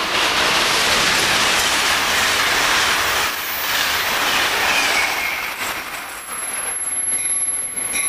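Passenger train passing close at speed: a steady rush of wheels on rail, with a brief high wheel squeal about halfway through and a run of clicks from wheels crossing rail joints near the end.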